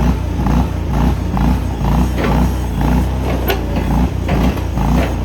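BTTL ST28H mini skid steer's engine running, a steady low hum that swells and dips about twice a second.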